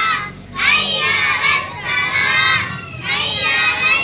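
A group of young boys chanting a rhyme loudly in unison, in short phrases with brief pauses between them.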